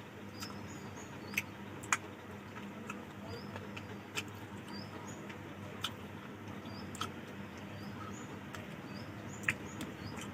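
Close-miked eating sounds: chewing and lip smacks with sharp mouth clicks every second or so, over faint short high chirps that recur throughout.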